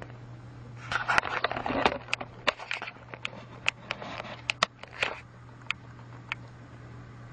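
Irregular clicking and rattling of small hard objects for about four seconds, thinning to a few single clicks, over a steady low hum.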